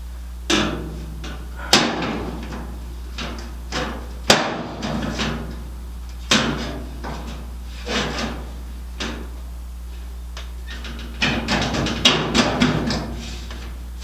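Irregular metal clanks and knocks from parts and tools being handled during work on a steel car door, each with a short ringing tail, with a quick cluster of them near the end. A steady low hum runs underneath.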